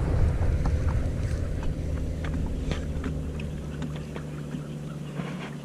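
A boat's motor running with a steady low hum that gradually gets quieter, with a few light clicks over it.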